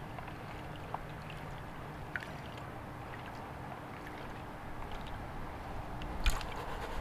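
Water sloshing and swirling in a gold pan as shredded connector debris is panned, with a few faint clicks and one sharper knock near the end.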